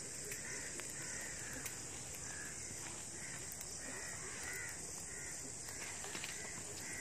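Night outdoor ambience: a steady high-pitched hiss of night insects, with short calls from an animal repeating roughly once a second and light crackles from a burning brush fire.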